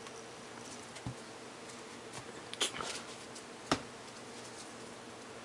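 Quiet room tone with a faint steady hum, broken by a few light clicks about one, two and a half, and three and a half seconds in.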